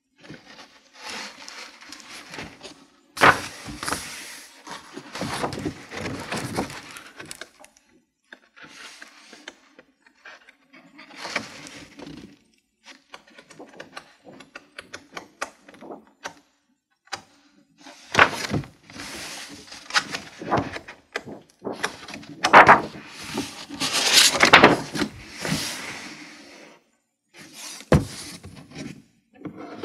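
Thick pages of a large-format cloth-bound book on Fedrigoni Tintoretto paper being turned and riffled by hand, in bursts of paper rustling and flapping that get louder and busier in the second half. Near the end the hardcover shuts with a single thump.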